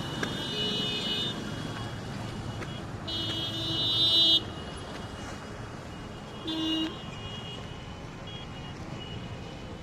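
Vehicle horns honking over a steady traffic hum. There is a short honk near the start. A longer one grows louder and then cuts off suddenly, and a brief honk comes about two seconds after that.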